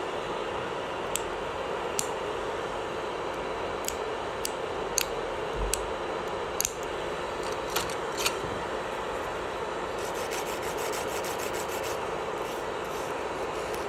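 Electric nail drill (e-file) running steadily, with scattered small clicks of tools against the nail and a fast fluttering rattle in the last few seconds.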